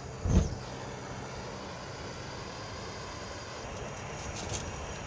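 Propane melting furnace lighting with a low whoomp about half a second in, then its burner running steadily with a low hum. A few metal clanks near the end as the steel furnace lid is closed.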